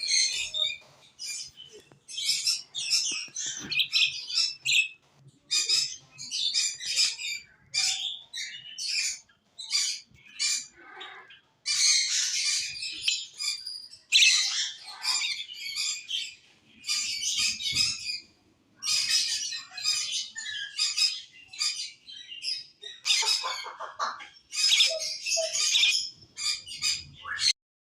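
Small parrots chirping and chattering in quick bursts of high-pitched calls, with short pauses between bursts; it stops abruptly near the end.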